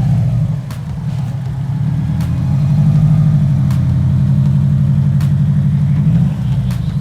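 Car engine running at low revs as the car is driven slowly. The low engine note grows louder about two seconds in and drops back near the end.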